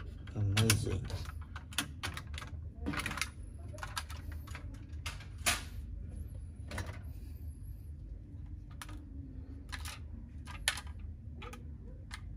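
Irregular clicks and knocks of plastic and metal toy trucks being handled by hand on a tabletop, over a steady low hum.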